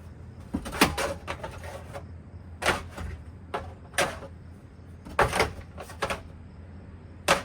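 A Hampton Bay Minuet 2 ceiling fan being smashed apart: about six hard knocks and clanks at irregular intervals, some in quick clusters, over a low steady hum.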